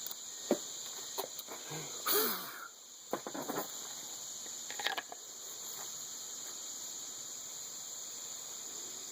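Steady high chirring of insects, likely crickets, with a few scattered light knocks and rustles of handling in the first five seconds.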